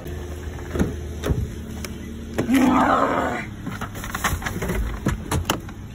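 Footsteps and a person getting into a car through its open door: scattered knocks and clicks, with a rough, drawn-out noise lasting about a second midway.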